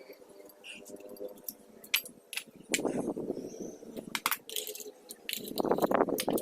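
Light metallic clinks and taps of tools and loose metal parts being handled, with two louder stretches of rough noise, about three seconds in and again near the end.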